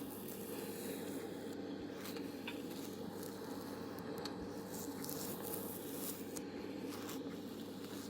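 Close-miked ASMR sound: scattered soft crackles and rustles over a steady low background noise.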